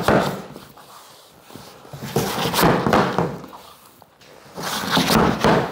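A heavy-duty tapping block knocking hard against the edge of a vinyl floor plank to drive its locking joint together. The hard knocks come in three bursts: one at the start, one about two to three seconds in, and one near the end.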